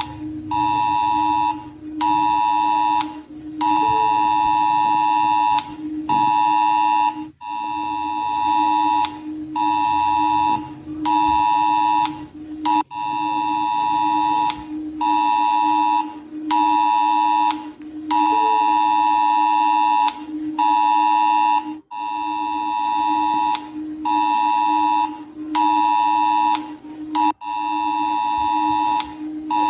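Emergency alert system attention signal: a loud, harsh two-tone beep sounding in repeated bursts of uneven length with short gaps between, over a steady low hum.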